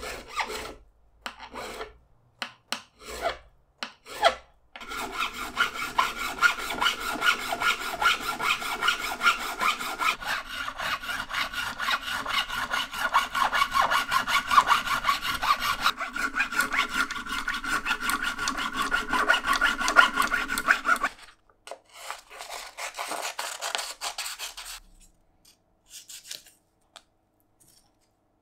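Quick back-and-forth abrasive rubbing strokes, as in hand filing or sanding, worked on a Gibson SB 400 bass. A few separate scrapes come first, then a long even run of rapid strokes starting about five seconds in and stopping about twenty-one seconds in, then a few shorter runs.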